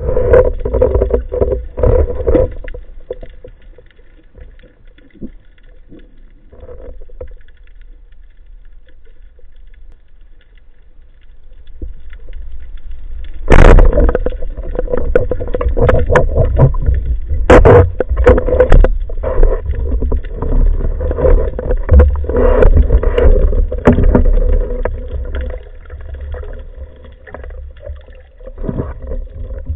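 Spearfishing underwater, heard through the camera's housing: a quiet stretch with a few knocks, then a single sharp crack about halfway through, typical of a speargun firing. Another crack follows a few seconds later, then continuous rumbling water noise and knocking as the speared mullet struggles and the diver moves.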